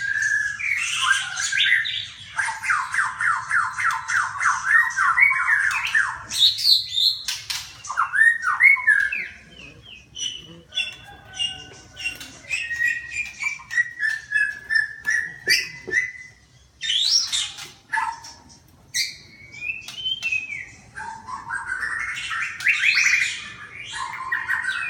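Birds calling: a rapid chattering trill, then scattered squawks and sliding chirps, with a quieter patch in the middle and more chattering near the end.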